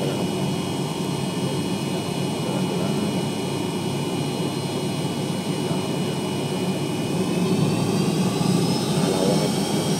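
Jet airliner engines running with a steady rumble, and a rising whine about eight seconds in.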